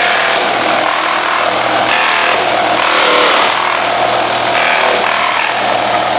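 Ridgid Gen5x R8642N 18-volt cordless reciprocating saw running steadily under load, its blade cutting through nailed wood.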